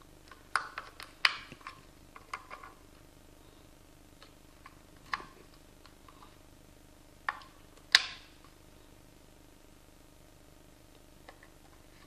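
Batteries being pressed into the plastic battery compartment of a UNI-T UT61E+ multimeter: a quick run of small clicks and knocks at first, then single clicks a few seconds apart, the sharpest about eight seconds in.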